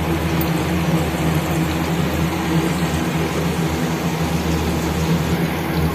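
Steady cooking noise on a gas stove: butter simmering into ghee in a steel pot and stuffed bitter gourds frying in oil, an even hiss over a steady low hum.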